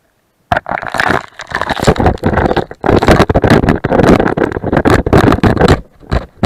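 Waterproof camera going down through a slushy hole in the ice into the water: slush and water sloshing and knocking against its housing. The loud, uneven crackling jumble starts suddenly about half a second in, with a few brief lulls.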